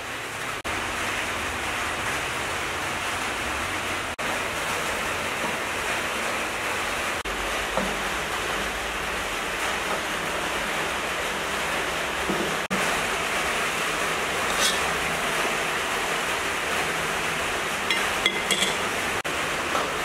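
Water at a rolling boil in a steel cooking pot, a steady rushing noise. A few light metal clinks sound from the pot and lid near the end.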